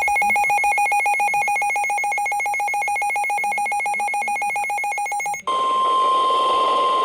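Emergency alert tones: a rapidly pulsing electronic alarm tone for about five and a half seconds, then, after a brief break, a single steady high tone, the NOAA Weather Radio 1050 Hz warning alarm tone that precedes a warning message.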